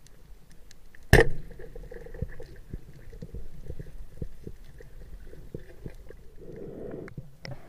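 A speargun firing underwater: one sharp, loud crack about a second in, followed by faint scattered clicks and knocks.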